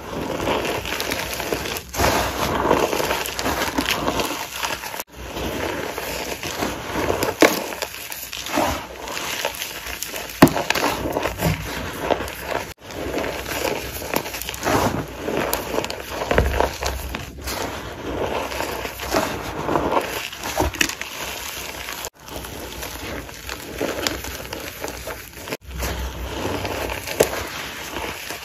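Soft gym chalk and cornstarch being crushed: a dense, crunchy crackle with frequent sharp cracks, broken by a few brief gaps.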